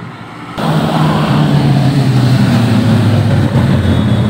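Motorcycle engines passing close by in a group, with a loud, steady low engine drone that comes in abruptly about half a second in.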